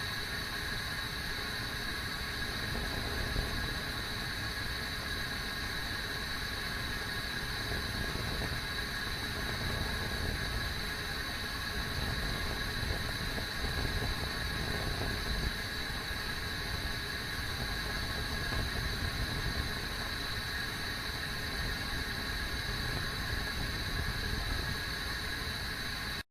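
Kettle heating toward the boil: a steady low rumble and hiss with faint constant high tones, cutting off suddenly at the end.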